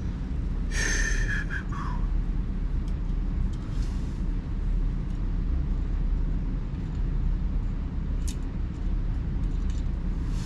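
A steady low background rumble throughout, with a short breathy gasp about a second in and a single light click near the end.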